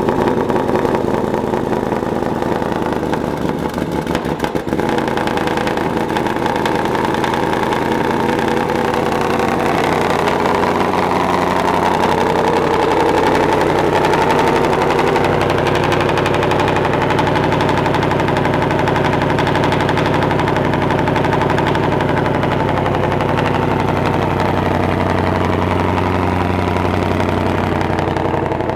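Twin-turbocharged 5.2-litre V8 of a 2020 Shelby GT500 running steadily at low revs, its pitch rising and falling a little.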